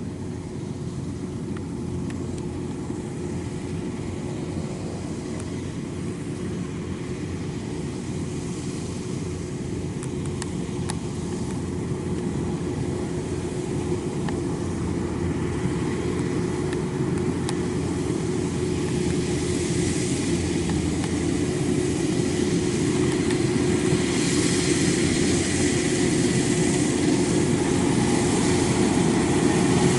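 Kubota DC-93 rice combine harvester's diesel engine and cutting machinery running steadily under load while it cuts rice, with a steady hum, growing gradually louder as the machine comes closer.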